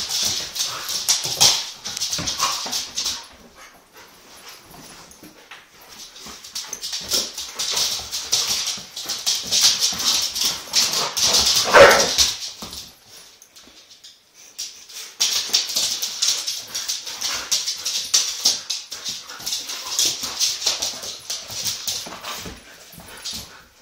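Three dogs playing rough on a wooden floor: a rapid, irregular clatter of claws scrabbling on the boards, mixed with small whimpering play noises, with two short lulls. About twelve seconds in, one dog gives a single short, loud cry, the loudest sound.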